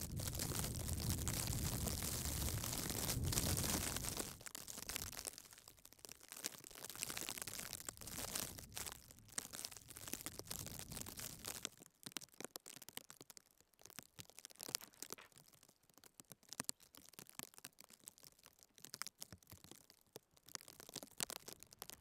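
Wind buffeting the microphone with a low rumble for about four seconds. It then drops away to a faint hiss with scattered small crackles and crunches.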